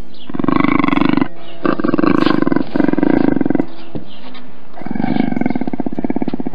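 Cougar giving a low, rapidly pulsing vocalisation in four spells: three of about a second each, then a pause and a longer one of nearly two seconds.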